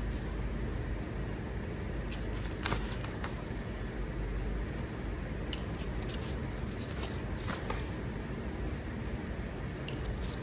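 Paperwork sounds: short scratches and clicks of a pen and paper as application forms are written on and handled, over a steady low background hum.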